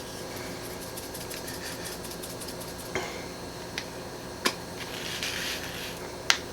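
Italian seasoning being shaken from its container onto raw chicken breasts: a quick run of light rattling ticks, then several sharp clicks of the container and kitchenware on the counter or plate, with a brief soft hiss of seasoning falling near the end.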